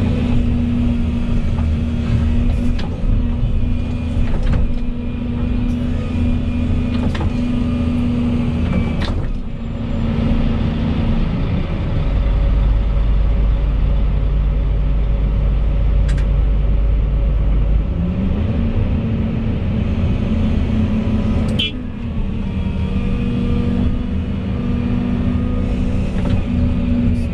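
Volvo EC220E 25-tonne excavator running under working load: a steady diesel engine note that sags about ten seconds in, gives way to a heavy low rumble for several seconds, then climbs back up, with a few sharp knocks along the way.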